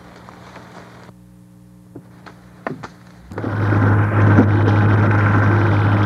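Low steady hum with a few faint clicks, then about three seconds in a Caterpillar tractor's diesel engine comes in loud and runs steadily with a deep drone.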